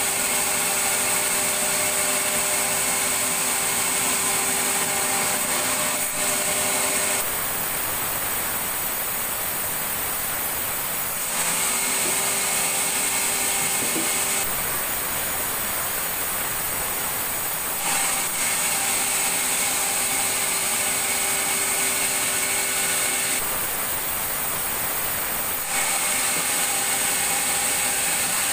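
Sawmill saw running continuously, a steady high whine that drops out for a few seconds at a time and returns, several times over.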